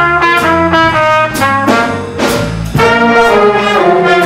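A brass instrument plays a short, mostly stepwise blues-scale phrase with accents over a B-flat blues backing track with a walking bass line.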